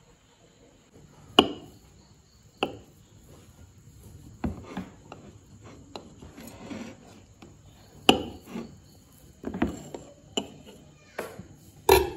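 Knife knocking against a plate as a cake is cut: a handful of separate sharp knocks, the loudest about a second and a half in and right at the end.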